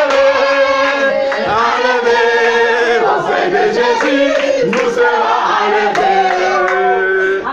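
Several voices singing and calling out together in group praise, overlapping, with held and gliding notes and a few hand claps.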